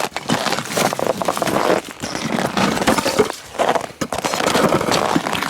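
Ice being broken up and crunched in a frozen-over goat water container, in several bouts of crunching and knocking with short pauses between them.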